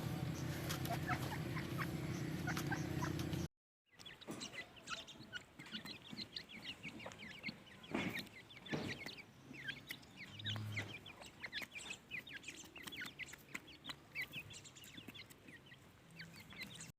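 Penned francolins (teetar) chirping: many short, high, falling chirps in quick, irregular succession. A steady low hum lies under the first few seconds, until the sound cuts out briefly about three and a half seconds in.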